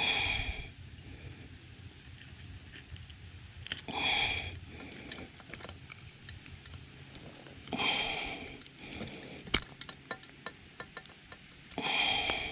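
A person's breaths or sniffs, one about every four seconds, with a string of small sharp clicks and taps of handling in the middle.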